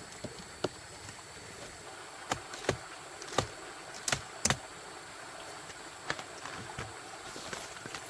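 Irregular sharp snaps and cracks, about seven over several seconds, from someone climbing through forest undergrowth, over a steady high insect drone.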